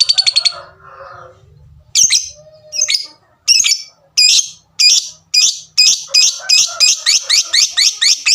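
Lovebird calling: a fast run of sharp high notes that breaks off, then single sharp 'tik' calls that repeat faster and faster toward the end, the ticking that builds into a lovebird's long chattering song.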